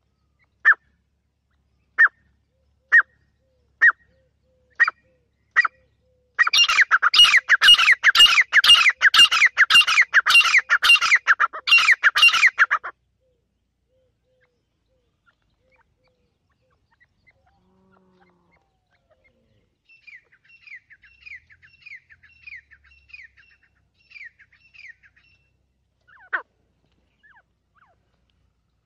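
Grey francolin calling: sharp single calls about once a second, then a loud, fast run of repeated calls, about two a second, lasting around six seconds. After a pause of several seconds a fainter run of calls follows, then one more call near the end.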